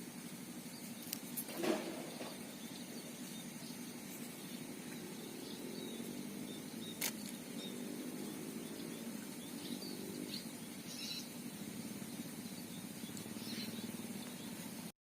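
Quiet outdoor background: a steady low hum with faint high chirps, broken by two sharp clicks, one about two seconds in and another about seven seconds in.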